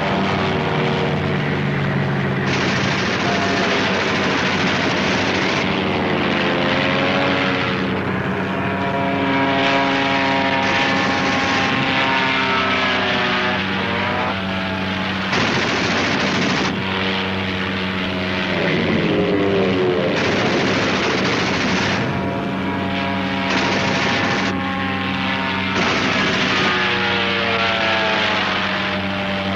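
Propeller aircraft engine droning steadily, its pitch sweeping up and down again and again.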